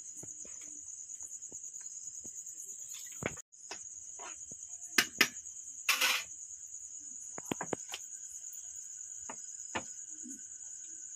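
Crickets chirping steadily in a fast high trill, with a few sharp clinks and knocks of cooking pots and a ladle, the loudest about five to six seconds in.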